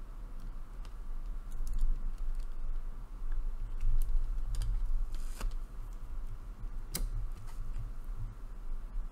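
Hard plastic toy parts from a Final Faction Arrow ATV kit clicking and rattling as the roll-cage pieces are handled and pressed together: scattered sharp clicks, the loudest two about five and a half and seven seconds in, over a steady low hum.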